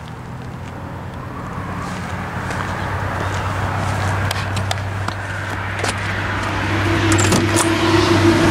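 A motor vehicle's engine running with a steady low hum that slowly grows louder. Near the end come a few sharp clicks from a car door handle and latch as a 1968 Camaro's door is opened.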